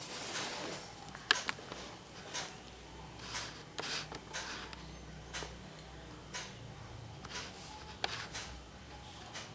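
Cardboard box handled and turned over in the hands: light rubbing and scraping of fingers against the box, with a few sharp clicks, the loudest about a second in.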